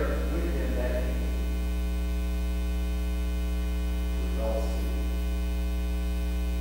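Steady electrical mains hum with a stack of overtones.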